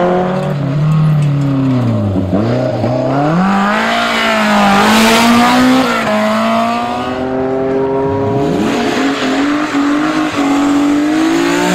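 Rally car engine at high revs, its pitch repeatedly dropping and climbing as it shifts gears and changes speed. There is a rush of noise about five seconds in.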